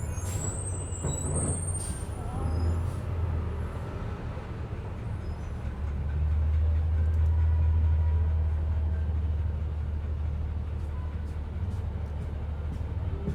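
Ride inside a moving passenger bus: a steady low rumble of engine and road that swells louder for a few seconds midway, with a brief high squeal and some rattling clicks near the start.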